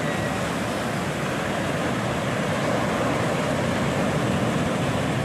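Ocean surf breaking and churning against a rocky shore: a steady rushing wash that does not let up.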